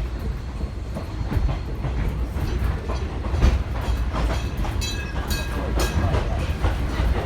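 Running rumble and clickety-clack of a steam-hauled vintage passenger carriage, heard from inside. About halfway through, the ringing of a level crossing warning bell comes in and fades out over a couple of seconds as the train passes the crossing.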